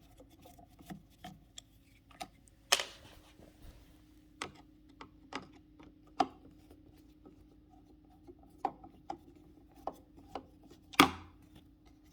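Irregular clicks and taps of a screwdriver working the small screws out of a T-top glass panel's lock cylinder housing, with sharper knocks about three seconds in and near the end. A faint steady hum runs underneath from about three seconds in.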